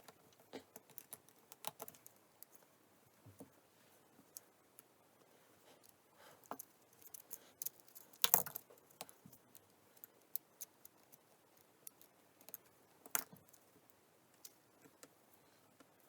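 Scattered small clicks and taps of repair tools and parts handled on an iPhone 8 while the earpiece and front camera assembly are fitted back in, with a louder cluster of clicks about eight seconds in and a single sharp click about thirteen seconds in.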